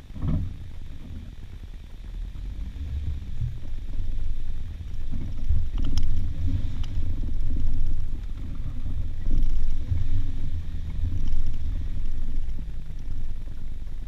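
Off-road vehicle engine running at low speed on a rough dirt trail, its low rumble swelling and easing several times, with a couple of sharp clicks about six seconds in.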